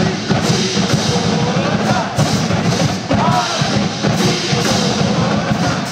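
Marching band percussion playing a steady drum beat, with high strikes about twice a second and crowd voices over it.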